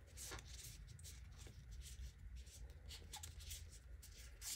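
Soft paper flicks of a stack of printed card-stock care cards being counted through one by one by hand, about three a second.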